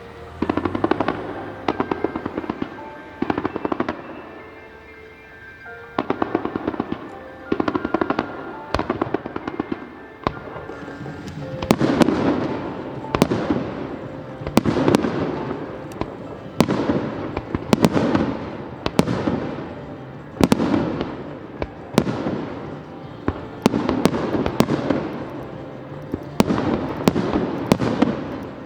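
Fireworks display: a rapid series of aerial shell bursts, about one to two a second, each a sharp crack with crackling and a fading echo, with a short lull about five seconds in. Music plays underneath.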